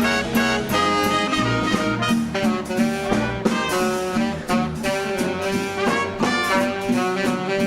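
A swing dance band playing, with saxophones, trumpet and trombone over a steady beat.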